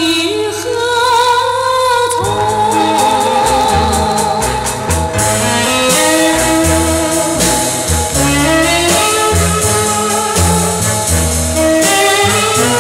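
Vintage Mandarin pop song recording with band accompaniment: a held note with vibrato ends about two seconds in, then the band plays on with a bass line stepping from note to note under the melody, with no words sung.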